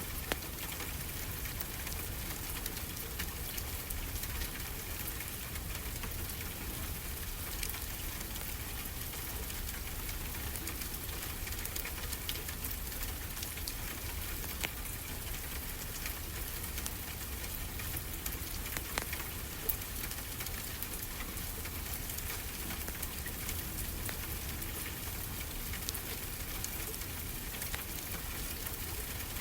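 A steady wash of ocean waves with a wood fireplace crackling over it. A handful of sharper pops stand out now and then.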